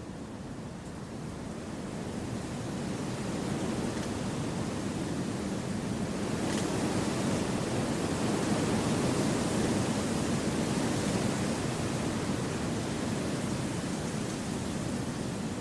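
Wind blowing through forest trees, a steady rushing that swells gradually over the first half and eases slightly near the end.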